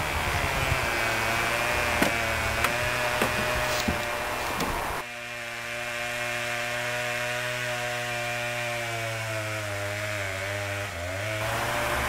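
Chainsaw engine running steadily, with a few knocks in the first half. About five seconds in the sound changes abruptly, and near the end the engine's pitch sags and then picks up again.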